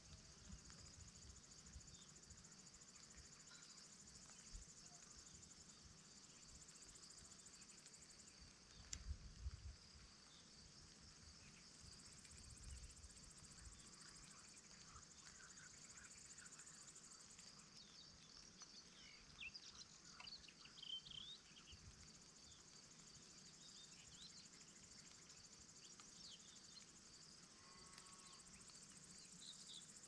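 Faint meadow ambience: a steady high chirring of insects, with scattered bird chirps. A few low gusts of wind rumble on the microphone, the loudest about nine seconds in.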